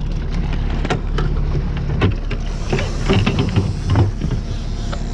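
Boat motor running with a steady low hum, with scattered sharp knocks and clatter from fishing rods and gear being handled.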